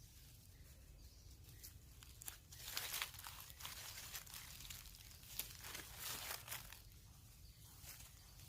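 Faint, scattered rustling and crackling, like dry material being crumpled or handled. It comes in short irregular bursts, a little louder around three seconds in and again past the middle.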